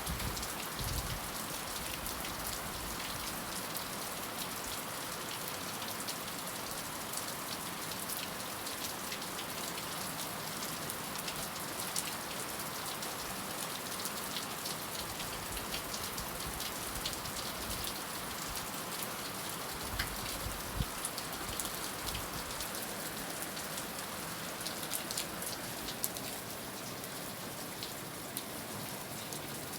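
Heavy rain falling steadily, with many separate drop hits, and a brief low rumble about twenty seconds in.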